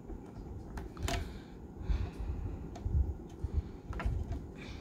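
Small clicks and taps of plastic and metal as fingers work a little cover off the DCC socket on a model locomotive's metal chassis, with a sharp click about a second in and two lighter ones near the end, over a dull low rumble.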